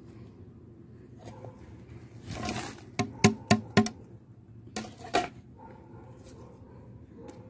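Dry vegetable peels rustling as they are dropped by hand into a cement pot, with a quick run of four sharp taps about three seconds in and two more about five seconds in.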